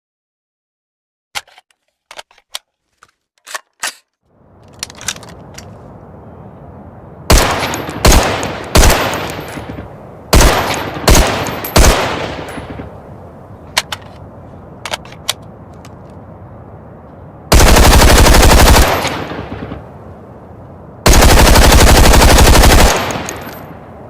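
AR-15-style assault rifle sound effect: a few sharp clicks, then six single shots about half a second to a second and a half apart, each with a fading echo. Two long bursts of fully automatic fire follow, each about one and a half to two seconds long, the loudest sounds.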